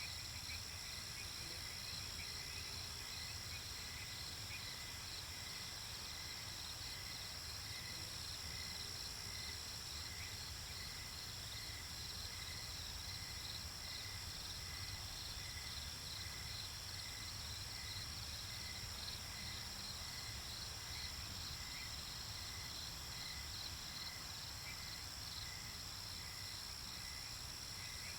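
Night insect chorus: crickets chirping in a steady, regular rhythm over a constant high trill, with a low steady rumble underneath.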